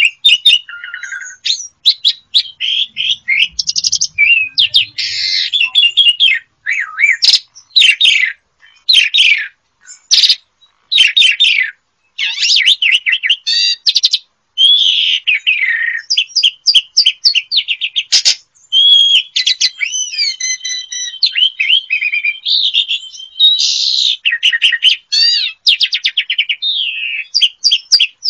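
Asian pied starling (jalak suren) singing a long, varied song of whistles, chattering phrases and rapid rattling trills, broken by a few brief pauses.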